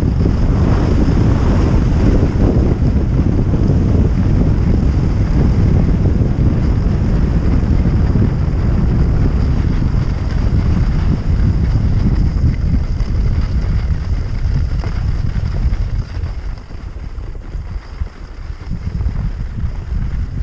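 Wind buffeting the microphone of a skier's camera during a fast run down a groomed piste, mixed with the hiss of skis on the snow. It eases for a few seconds about three quarters of the way through.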